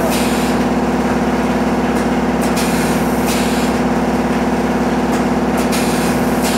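Pneumatic vertical form-fill-seal packing machine with a servo auger filler running through its bagging cycle. A steady machine hum carries throughout, and pairs of short air hisses come about every three seconds as the pneumatic cylinders exhaust, some led by a sharp click.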